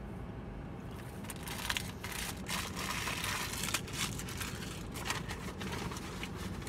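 Paper or plastic fast-food packaging being crinkled and handled in a series of crackly rustles, over a steady low hum.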